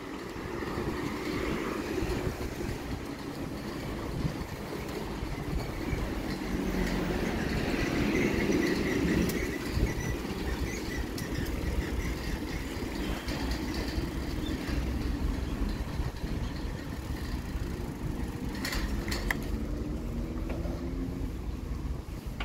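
Road traffic and riding noise heard from a bicycle on a paved sidewalk: a steady rumble of tyres and engines that swells around eight seconds in, with a few sharp clicks about nineteen seconds in.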